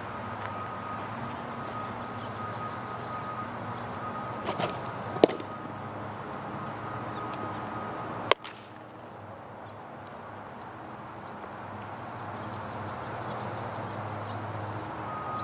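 Baseball glove catches: a pitched ball pops sharply into the catcher's mitt about five seconds in, and a second sharp leather snap a little past halfway as the return throw lands in the pitcher's glove. Under them a steady outdoor background hum with a faint constant tone.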